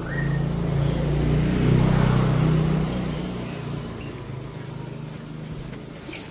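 A motorcycle engine going past in the lane, growing louder to a peak about two seconds in and then slowly fading.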